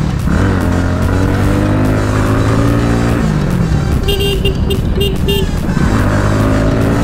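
Bajaj Pulsar NS200's single-cylinder engine running in traffic, its revs falling about three seconds in and rising again near the end. A horn gives about five short beeps in quick succession about four seconds in.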